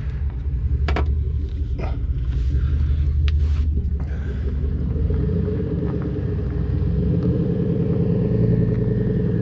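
A motor vehicle's engine running with a low, steady rumble that fills out about five seconds in; it is a noise heard from outside the Duster, which is not itself running.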